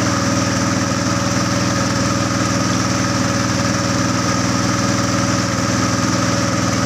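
Boat engine running steadily at an even speed, with no change in pitch or loudness.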